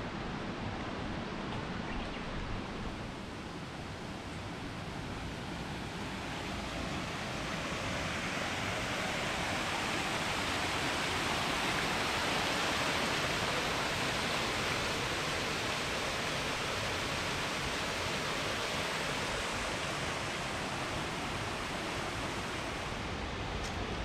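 Waterfall rushing: a steady roar of falling water that grows a little louder through the middle.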